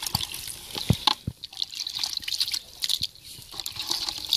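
Squash slices being tipped and scooped by hand from a pan into a bucket of water: a run of small splashes, plops and drips.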